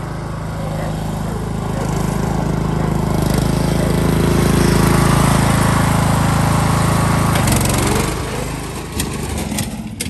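Pulley-swapped Craftsman riding lawn mower's 15.5 hp engine running steadily at speed, growing louder as the mower closes in. Near the end there is a clatter of knocks and the engine sound falls away, in what the title calls a crash.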